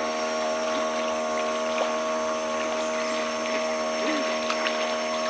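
A steady, even-pitched droning hum over a constant hiss, with a few faint short chirps and ticks.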